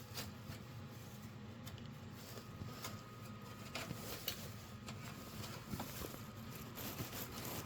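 Faint handling noise: scattered light clicks and rustles, as of wires and tools being moved at an open panel, with a faint steady high tone coming in after about two seconds.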